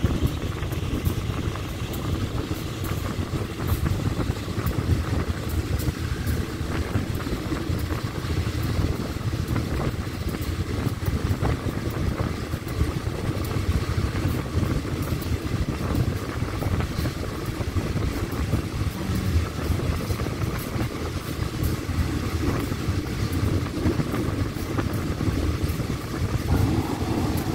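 Passenger train carriage running along the line, heard at an open window: a steady rumble of wheels on the rails mixed with rushing air.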